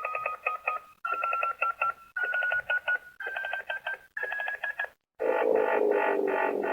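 Power Rangers Cosmic Fury Morpher toy playing its electronic communicator sound effect: five one-second runs of rapid beeps, each a step higher in pitch, then a harsher buzzing tone about five seconds in. It could pass for a bomb timer.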